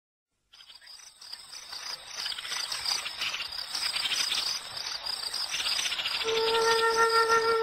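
Crickets chirping in a fast pulsing trill, fading in from silence. About six seconds in, a long held note of soft music enters over them.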